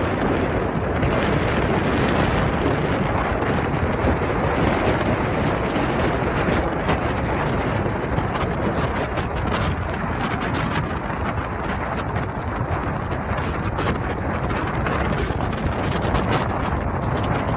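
Wind buffeting the microphone over a motorboat's engine running steadily at speed, a constant rushing noise with no breaks.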